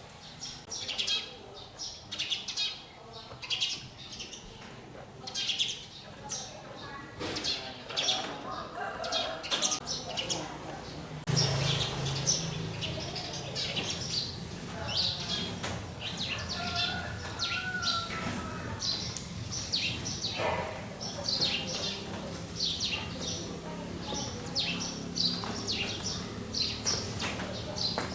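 Small birds chirping repeatedly in short, high, quick calls. A low steady hum joins about eleven seconds in.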